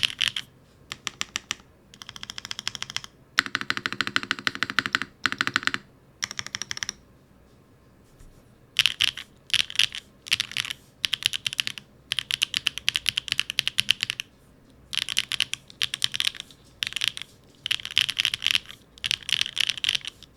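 Typing on a mechanical keyboard with BSUN K1 linear switches (factory-lubed), in a Neo75 Cu with an aluminium plate, hot-swap PCB and no foam. It comes as rapid runs of key presses with short pauses, and one longer pause about seven seconds in.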